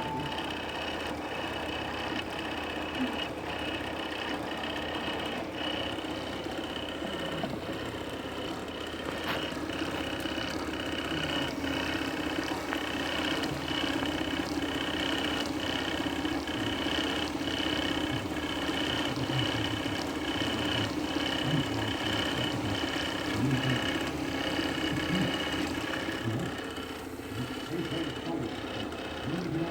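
3D printer running, its stepper motors whining steadily with short, irregular changes in pitch and ticks as the print head and bed move.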